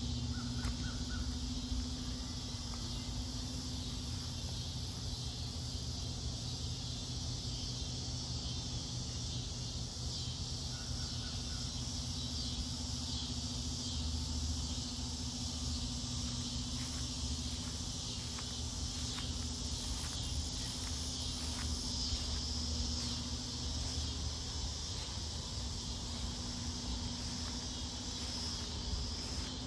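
Outdoor garden ambience: a steady, high, continuous drone of insects over a low steady hum, with a few short bird chirps.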